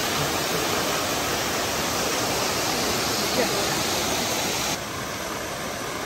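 Upper Düden Waterfall: a steady, loud rush of falling water. It drops somewhat in level and loses some of its hiss near the end.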